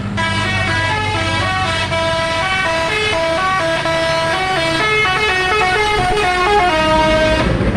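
A tour bus's telolet multi-tone air horn playing a fast melody of short, stepped notes, several pitches at once, over the low running of the bus engine. The horn cuts off near the end.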